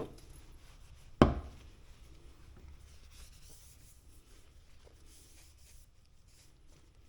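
A rag rubbing softly over an oily metal part to wipe it clean. There is one sharp knock about a second in.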